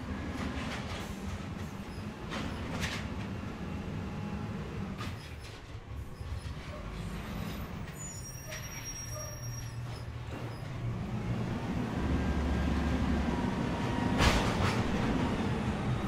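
Natural-gas engine of a Peterbilt side-loading garbage truck running while the truck stands still. The engine gets louder in the second half, with scattered clanks and one sharp bang about fourteen seconds in.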